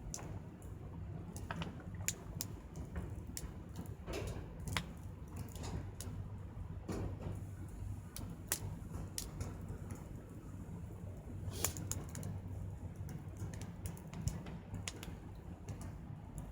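Small wood fire of scrap lumber crackling, with sharp irregular pops and ticks, over a low steady hum.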